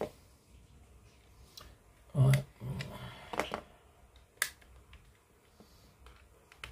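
Small plastic model-kit parts and metal tweezers handled on a cutting mat: scattered sharp clicks and taps, with a louder burst of handling noise about two seconds in.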